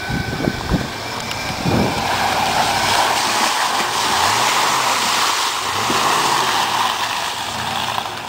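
Full-size Ford Bronco driving through deep mud, its tyres churning and throwing mud and water in a steady rush, with the engine revving up and easing off twice. A few thumps in the first two seconds.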